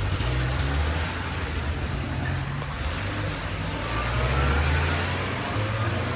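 Car engine and road noise: a steady low rumble of a car driving, with tyre and wind hiss over it.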